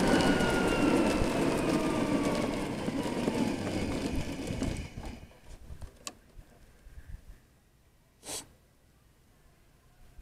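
CMC e-moving electric scooter with a Joden V200 power system slowing to a stop. Wind and tyre noise fade away over the first five seconds, and the electric motor's whine falls in pitch as speed drops. Then the scooter stands still with a few faint clicks and a brief hiss about eight seconds in.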